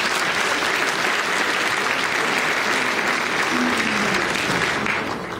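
Audience applauding: steady clapping from many hands that fades out near the end.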